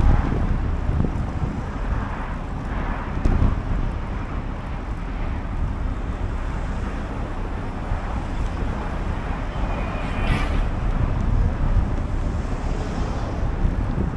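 Wind rushing over the microphone while cycling, a steady low rumble with no letup.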